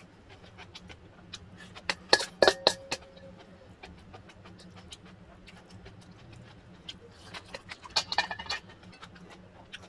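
Metal spoon scraping and clinking against a stainless steel mixing bowl, with scattered light clicks and two louder flurries of clinks, about two seconds in and near eight seconds; after the first flurry the bowl rings briefly.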